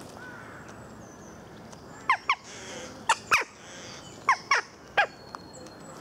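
Rooks and jackdaws calling: seven short, sharp calls, mostly in quick pairs, between about two and five seconds in.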